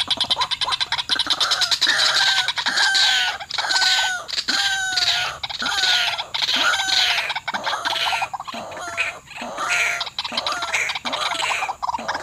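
White-breasted waterhen calling: a harsh, gliding 'kru-ak' call repeated about one and a half to two times a second.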